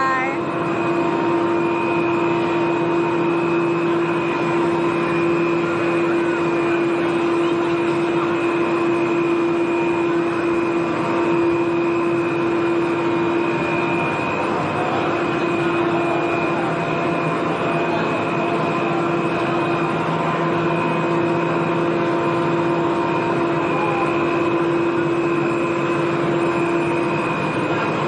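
Steady mechanical drone of the cable car station's gondola drive machinery: a constant low hum with a thin higher whine over it.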